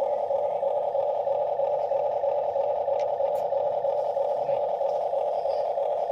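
Huina remote-control toy excavator's electric motors whirring steadily as the boom and bucket move.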